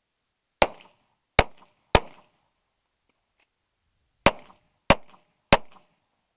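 Six pistol shots from a .45 ACP single-action competition pistol, fired as two strings of three, about 0.6 s apart within each string, with a pause of a little over two seconds between the strings.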